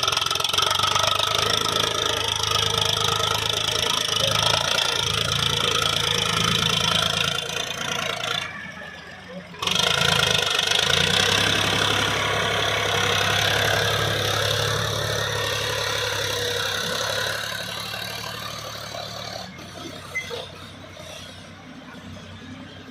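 Diesel engine of heavy earth-moving machinery running steadily. The sound drops out for about a second, nine seconds in, then comes back and grows quieter near the end.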